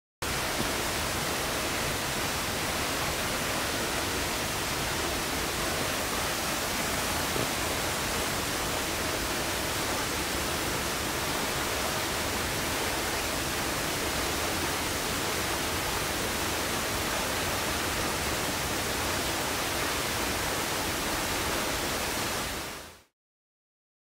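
Partly iced-over waterfall: the steady rushing of water falling over a rock ledge into a plunge pool. It starts abruptly and fades out about a second before the end.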